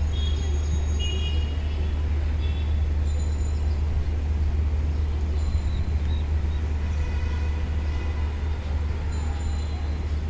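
City street traffic noise: a steady low rumble of passing vehicles, with brief high-pitched tones scattered through it near the start and again in the last few seconds.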